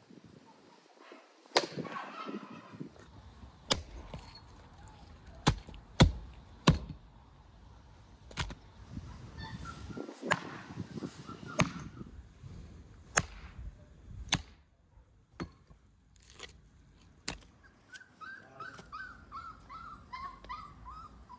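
Small axe chopping through raw beef ribs on a wooden stump: about a dozen sharp chops at uneven intervals, with pauses between them. Short high animal calls come and go, with a quick run of them near the end.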